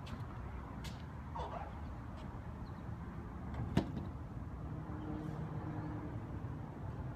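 Steady low rumble of traffic, with the shop's glass entrance door swinging shut and its latch clicking sharply once a little past halfway through.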